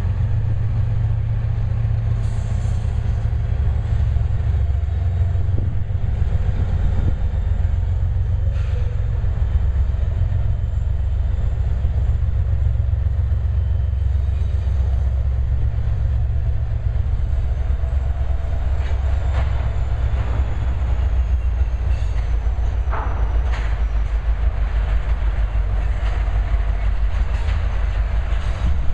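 Loaded oil train passing close by. The diesel engines of two Canadian Pacific GE ES44AC locomotives and a BNSF EMD SD70ACe run with a steady low rumble, then the tank cars roll by, their wheels clicking over the rail joints in the second half.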